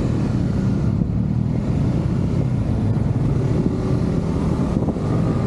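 Engine running steadily: a continuous low rumble.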